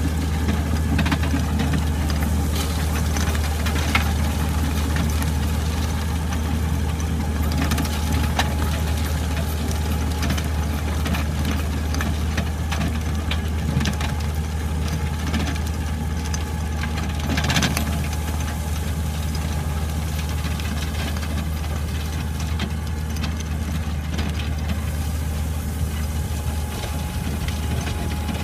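Engine of a Scorpion 500 land drainage machine running steadily, with a few sharp knocks or clanks at irregular moments.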